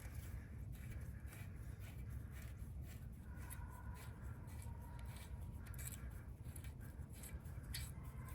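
Faint small metallic clicks and scrapes of a bolt being turned by hand into a tractor hitch pin, over a low steady rumble.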